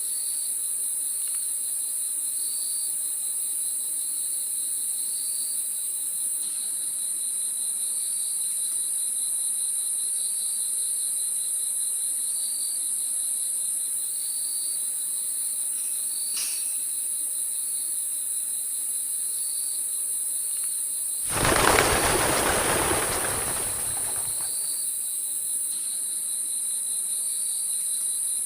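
Crickets in a steady high-pitched chorus, with a chirp repeating every second or so. About three quarters of the way through, a loud rush of noise rises suddenly and fades over about three seconds.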